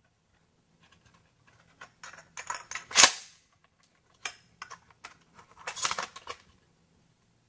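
Pump-action shotgun being hand-loaded during a dry-fire reload drill: a run of metallic clicks and clacks as a shell goes over the top into the chamber and the action is closed, the sharpest clack about three seconds in, then another cluster of clicks near the end as a shell is pushed into the magazine tube.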